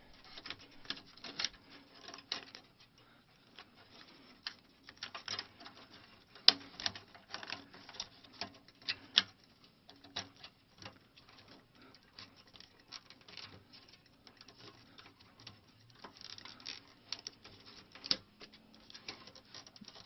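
Irregular plastic-and-metal clicks, taps and rattles as a hard drive in its blue plastic drive rail is worked by hand into an IBM ThinkCentre's drive bay, trying to snap it into place. The sharpest clicks come about six and a half seconds in and again near the end.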